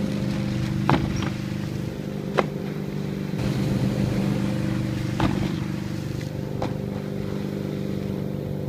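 Motorboat engine running steadily at speed while towing a water skier, with four brief sharp clicks spread through it.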